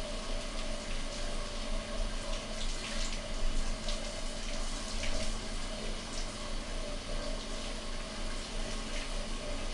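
Steady running water, with a few brief sharper noises about three to five seconds in from hands washing a wet cat.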